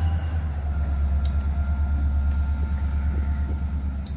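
EMD GP40-2 diesel-electric locomotive's turbocharged V16 two-stroke engine working under power as the locomotive backs up: a steady deep pulsing rumble with thin high whining tones over it, easing a little near the end.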